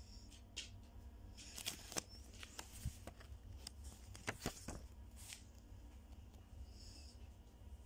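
Pages of a paper bus timetable booklet being handled and turned: a string of faint paper rustles and light clicks through the first five seconds, over a steady low hum.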